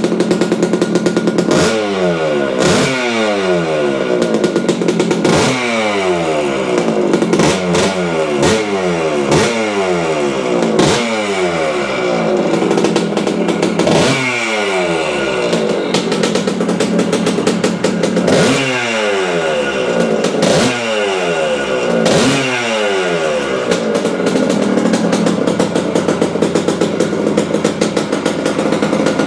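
Yamaha AT-2 MX 125 cc single-cylinder two-stroke engine, breathing through an aluminium aftermarket silencer, revved in a string of quick throttle blips, each falling back. It then settles to a steady idle for the last few seconds. It revs cleanly and idles evenly now that its CDI ignition fault is fixed.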